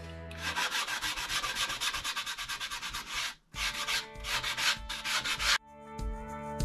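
Foam sanding block rubbed quickly back and forth over the chalk-painted edges of a wooden tray, scuffing through the white paint to give it a distressed look. The strokes break off briefly about three and a half seconds in, then stop, and background guitar music comes in near the end.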